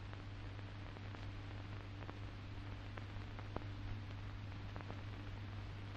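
Steady hiss and low hum of an old film soundtrack, with scattered faint crackles.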